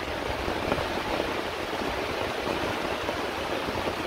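Heavy rain falling steadily in a constant downpour.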